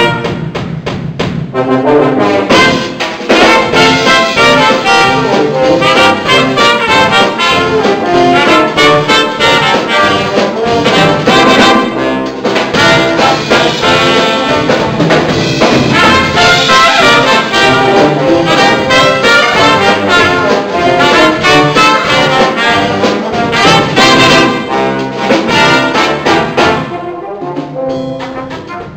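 Small live brass band of trumpets and trombones with drums playing a lively piece, the music dropping in loudness near the end.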